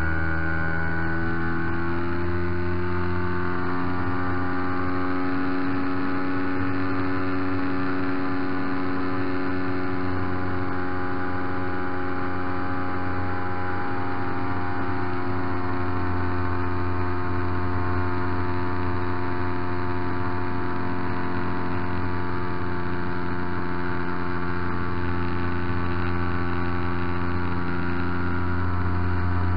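MVVS 116 twin-cylinder two-stroke engine of a large RC Piper J-3 Cub running at full throttle, heard up close. Its pitch rises over the first few seconds as the plane lifts off, then holds steady through the climb with a glider in tow.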